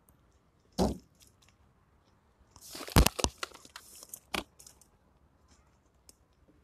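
Hands unpacking a bag and setting items down. A single knock comes about a second in. Around three seconds there is a burst of plastic-bag rustling with sharp clicks and knocks, and one more click comes a little later.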